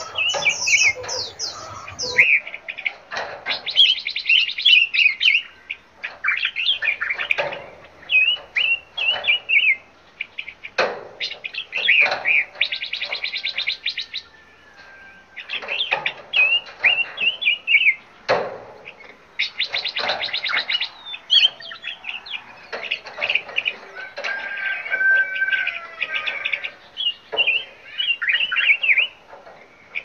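Several caged songbirds chirping and calling over one another, with three bursts of very rapid trilling and now and then a sharp click.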